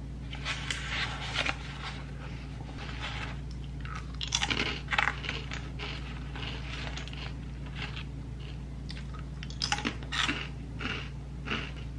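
Crisp snack being bitten and chewed, in irregular crunches, the loudest about halfway through and again near the end.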